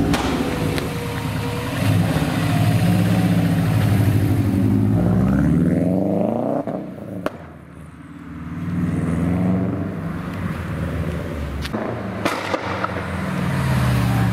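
Subaru Impreza WRX's turbocharged flat-four running through a loud custom turbo-back exhaust. It rises in pitch as it accelerates about five seconds in, drops away briefly, then runs again. A few sharp cracks come in the middle and near the end.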